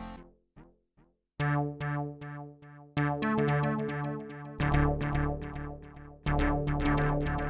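Sequential OB-6 analog polyphonic synthesizer playing a plucky, sequenced patch. A held sound dies away, and after a short gap a rhythmic pattern of short decaying notes over a repeating bass starts about a second and a half in. The pattern grows fuller and louder about halfway through.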